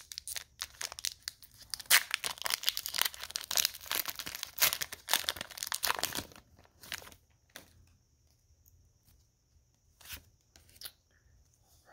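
Foil trading-card booster pack wrapper being torn open and crinkled, a dense crackling that stops about six seconds in. After that come a few short rustles and clicks as the cards are pulled out and handled.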